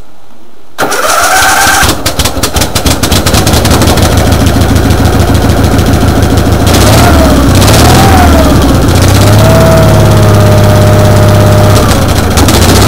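Cold start of a Gravely 818T riding tractor's Onan engine. The starter cranks briefly, the engine catches and runs unevenly at first, then its speed rises and falls a few times before it settles into a steady run.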